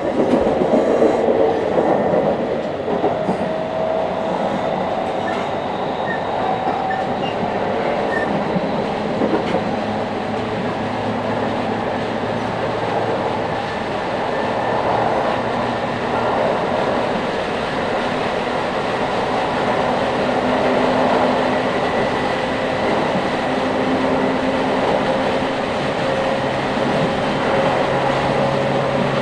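A JR East 701 series (5500 subseries) electric train running between stations, heard from inside the car: a steady rumble of wheels on rail and track joints, with the whine of its GTO-inverter traction motors. A few of the whine tones slowly rise in pitch.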